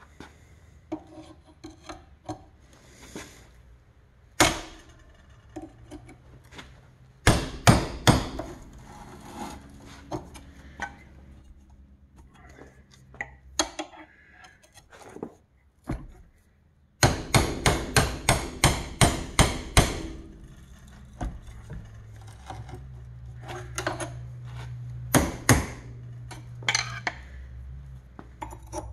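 Hammer tapping a screwdriver wedged into the split of a rusted-on bushing sleeve on a lower control arm shaft, to spread it off the shaft: scattered single metal knocks and two runs of rapid strikes, about four a second, with scraping between them.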